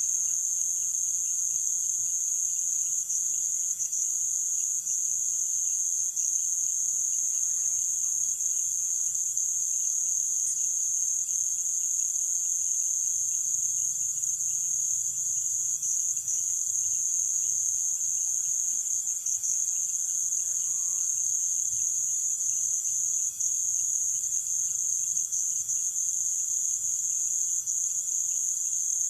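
A dense chorus of night insects: a steady, high-pitched shrill that never lets up, with a fainter, lower steady whine beneath it.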